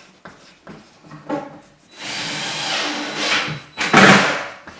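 Pencil scratching on a cabinet's back panel while numbers are written and circled: a few short strokes at first, then a longer continuous scratching from about two seconds in, loudest near the end.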